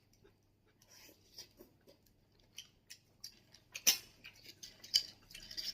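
Scattered faint clicks and taps of chopsticks and clam shells during eating, with one sharper click about four seconds in.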